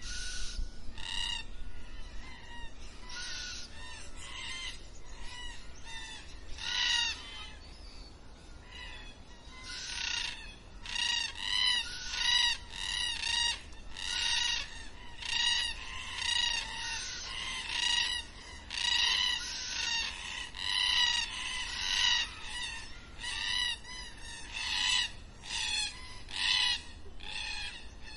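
Black cockatoos calling: repeated drawn-out, arching calls, a few spaced ones at first, then about one a second from roughly ten seconds in.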